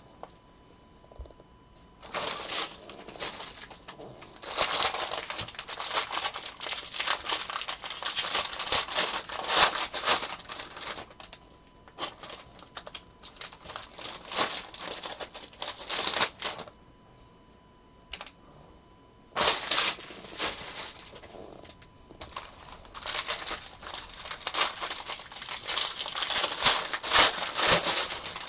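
Trading card packs being opened by hand, in several long runs with short pauses between them: foil wrappers crinkling and tearing, and cards flicked through in quick clicking runs.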